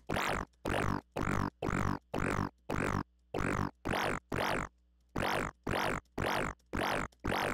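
Dubstep bass patch in the Xfer Serum synthesizer, its saw-based oscillator frequency-modulated from oscillator B by an envelope-mode LFO, played as short repeated notes about twice a second. Each hit has a downward-sweeping tone, with one short pause around the middle. This is an early, unfinished stage of the patch, sounding not that great yet.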